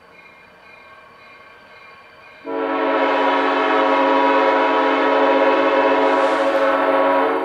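Nathan AirChime M5 air horn on an EMD SD40M-2 diesel locomotive sounding one long, steady chord that starts abruptly about two and a half seconds in and cuts off near the end. Before it, the approaching locomotive is heard only faintly.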